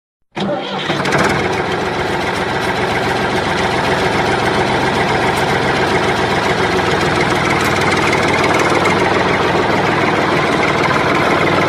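Tractor engine idling steadily, starting abruptly about a third of a second in.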